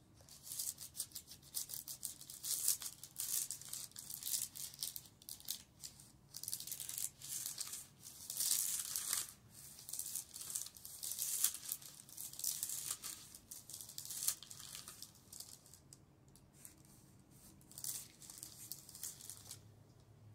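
A steam iron scrubbed back and forth over parchment paper on denim, pressing a transfer onto the jeans: an irregular, scratchy rustling of the soleplate sliding on paper. It thins out after about sixteen seconds.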